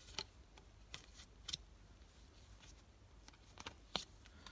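Faint, scattered clicks and light taps of a plastic robot-vacuum dust bin being handled, about half a dozen spread over a few seconds.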